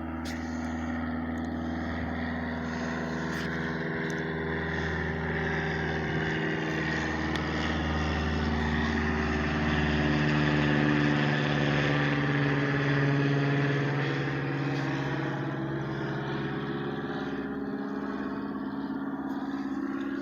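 A vehicle engine running steadily. It grows louder around the middle and then eases off.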